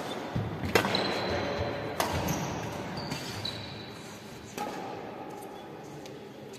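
Badminton rackets hitting a shuttlecock during a doubles rally: three sharp smacks, the loudest about a second in, then others near two seconds and between four and five seconds, in a large indoor sports hall.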